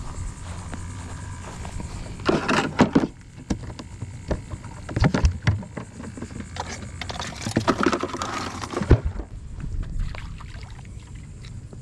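A plastic cooler being opened and a live blue crab put into it from metal crab tongs: two bouts of clattering and scraping, about two seconds in and again from about seven to nine seconds, with scattered knocks between them and one sharp knock at the end of the second bout.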